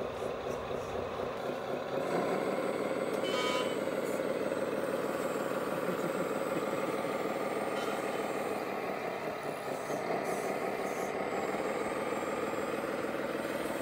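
Radio-controlled wheel loader's sound module playing a diesel engine sound, which grows louder about two seconds in as the machine works. A short electronic beep sounds once, about three and a half seconds in.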